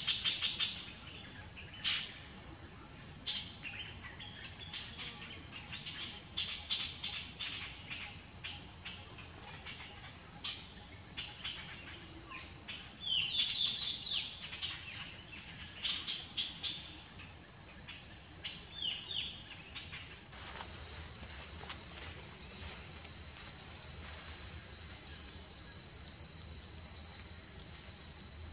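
A steady, high-pitched insect chorus, with scattered faint clicks and a few short chirps in the first part. About two-thirds of the way through it gets suddenly louder and stays so.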